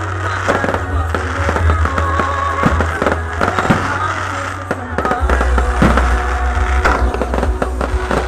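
Aerial fireworks bursting and crackling in quick, irregular succession, with music playing alongside and a heavy, steady bass beneath.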